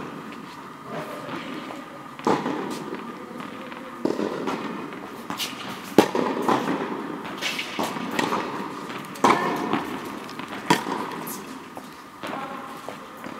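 Tennis balls being struck with rackets in a rally: sharp pops about every one and a half to two seconds, with lighter ball bounces and footsteps between them.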